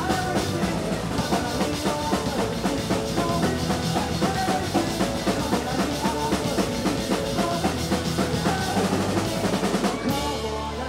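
A rock band playing with a driving drum-kit beat, snare and bass drum out front over guitar and bass. Near the end the sound changes abruptly, the cymbals and high end falling away.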